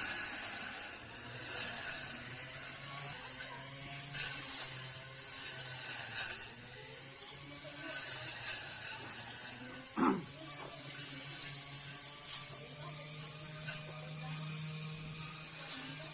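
Homemade grass cutter driven by a sewing-machine motor running with a steady hum, with recurring high hissing and a single sharp knock about ten seconds in. The hum rises slightly in pitch near the end.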